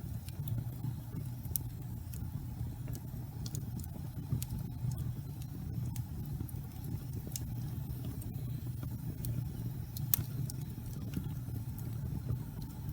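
Wood fire burning in a fireplace: a steady low rumble with scattered sharp crackles and pops, one louder pop about ten seconds in.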